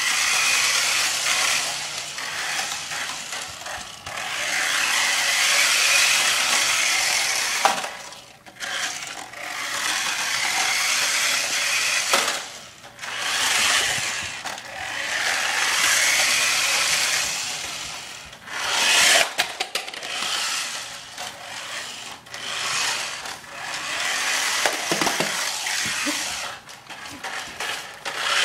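Toy radio-controlled car's small electric motor and gears whirring at high pitch in runs of a few seconds each, dropping away briefly between runs as the car stops and starts again.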